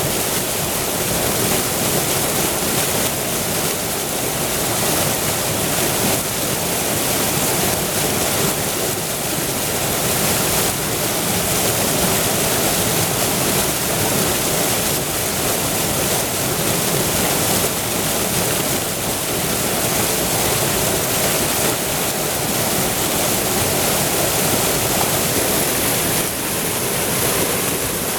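A river waterfall: water pouring over the falls, rushing loudly and steadily.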